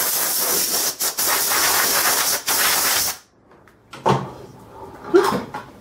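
Compressed-air blow gun blowing off a freshly brake-cleaned connecting rod and cap before the bearings go in: a loud, steady hiss with two brief breaks that cuts off a little past halfway.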